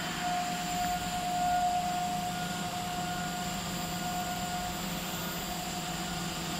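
PP/PPR pipe extrusion line running: a steady machinery hum with a constant high whine over an even hiss.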